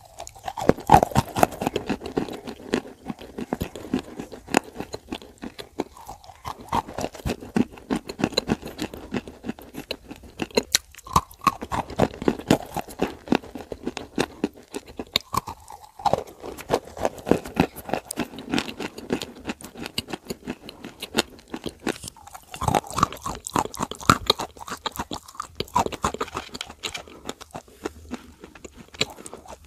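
Close-miked crunching and chewing of dry Turkestan clay dipped in clay paste: a dense run of sharp crunches, broken by a few short pauses between bites.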